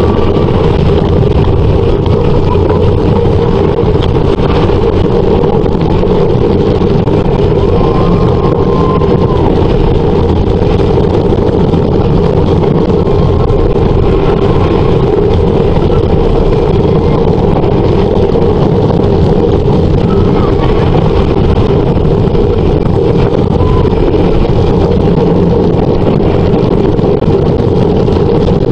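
Wooden roller coaster train running at speed along its track: a steady, loud rumble and clatter of the wheels on the wooden structure, with wind on the microphone.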